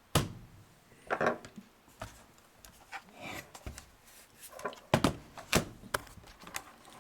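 Handling noises from working on an open laptop: several sharp plastic clicks and knocks with softer rubbing and shuffling in between.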